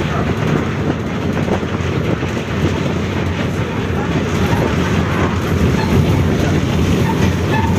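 Volkswagen 17-230 OD city bus under way, a steady loud running and rattling rumble of the drivetrain and body, with the differential growling loudly.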